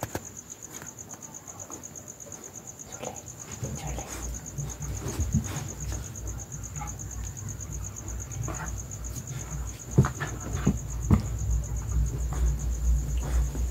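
Crickets chirping steadily, a fast even pulsing trill. From about four seconds in, low rumbling handling noise and a few sharp knocks come over it, the loudest about ten seconds in.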